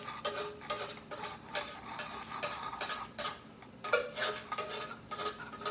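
A metal spoon scraping and clinking against an open can of wet cat food, in short, irregular strokes as the food is scraped out.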